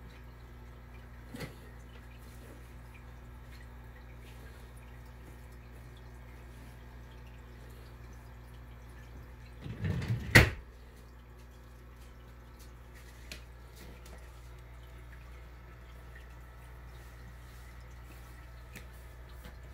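Aquarium air pump humming steadily, with water bubbling and dripping from the airstones and air bar. About ten seconds in there is a short loud rustle and thump, with a couple of faint clicks elsewhere.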